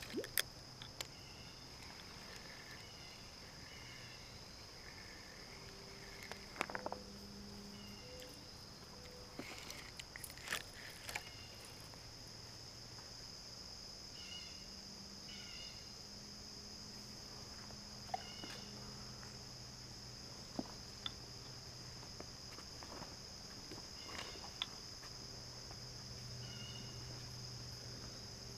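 Steady high-pitched insect chorus, with a few faint clicks and short chirps scattered over it.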